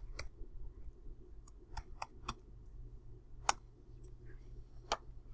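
Computer keyboard and mouse clicks: about seven short, sharp, scattered clicks, the loudest about three and a half seconds in, over a faint steady low hum.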